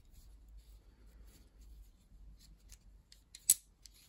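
Electrode quiver's toggle switch being squeezed in locking pliers: faint creaks and small clicks, then one sharp crack about three and a half seconds in as the switch's deteriorated plastic housing crushes.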